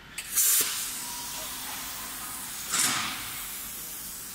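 Compressed air hissing out, with two louder blasts, one about half a second in and one near three seconds, and a steady hiss between and after them.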